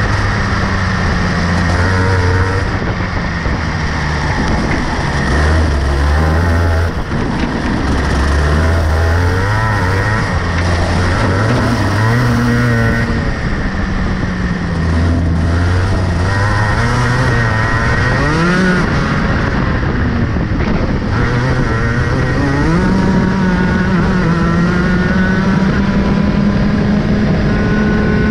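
Rotax Max 125cc two-stroke kart engine, heard from on board, revving up and down over and over as the kart laps the circuit. Its pitch climbs on the straights and drops off into the corners.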